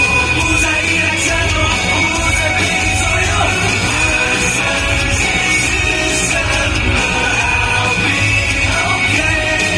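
Loud live pop-rock band music with vocals over it: the instrumental closing stretch of a song, with a steady beat and cymbals.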